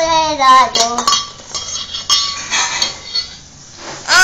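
A young child's voice briefly, then small dishes and utensils clinking and clattering as a child plays at cooking. A loud child's voice breaks in at the very end.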